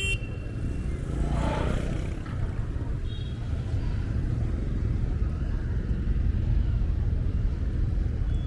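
Steady low rumble of city street ambience, mostly road traffic, with a short sweeping sound about a second and a half in.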